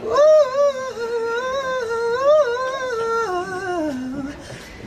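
A solo voice humming a wordless melody unaccompanied, holding long notes that swell up and dip, then stepping down in pitch and trailing off near the end.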